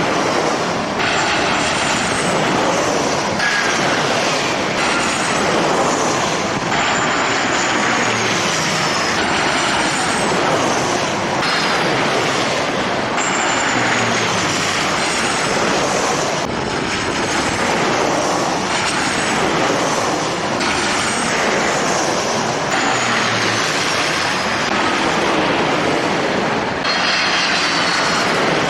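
Jet airliner engines: a loud, steady rush with high whining tones that slide down in pitch. The sound shifts abruptly every second or two.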